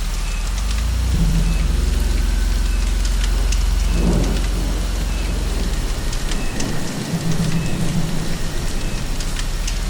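Steady rain pattering on a surface, with a continuous low rumble of thunder beneath it that dips briefly about two-thirds of the way through.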